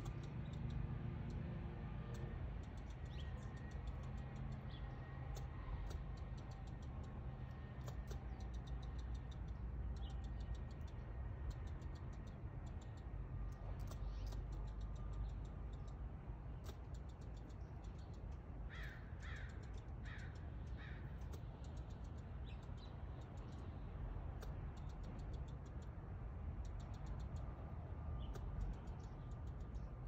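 Tree squirrel making a long, irregular series of short, sharp chucking clicks while flicking its tail, the scolding alarm calls of an agitated squirrel, with three louder drawn-out calls about two thirds of the way through. A steady low rumble underlies it.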